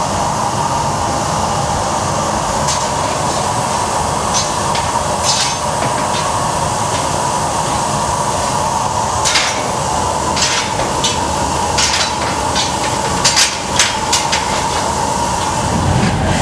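A gas-fired forge furnace running with a steady rushing noise, and about a dozen sharp metallic clinks of steel tongs against the steel billets heating in it.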